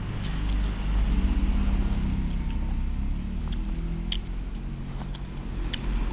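Low, steady rumble of a running motor vehicle. Over it come scattered light clicks and paper rustles from a metal spoon scooping sticky rice off its paper wrapping, the sharpest about four and six seconds in.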